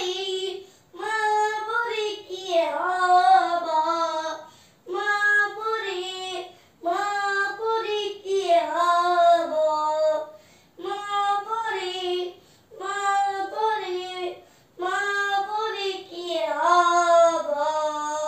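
A child singing solo and unaccompanied, in short melodic phrases with brief pauses between them.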